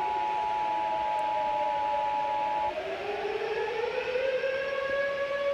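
Civil defense siren wailing, its pitch falling and then rising again. Under it, a steady two-tone emergency alert attention signal sounds and cuts off sharply about halfway through.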